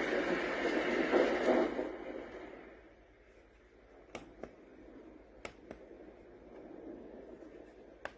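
A white noise machine's small speaker plays a loud, even noise sound that fades away over the first two or three seconds. A faint hiss follows, with a few sharp clicks from its buttons being pressed, the last two close together near the end.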